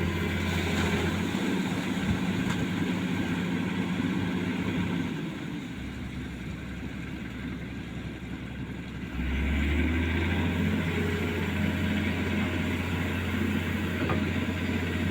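Hitachi Zaxis 210F excavator's diesel engine running steadily while digging. It eases off about a third of the way in, then steps back up sharply to a higher, louder pitch about two-thirds of the way in, as the machine takes load again.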